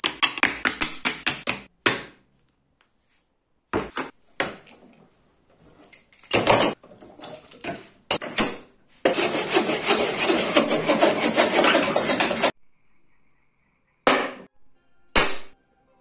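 Hand tools working wood in a string of short cuts: fast rasping strokes, about five a second, at the start; scattered short scrapes and knocks; then a longer run of fast rasping strokes a little past the middle; and two brief scrapes near the end.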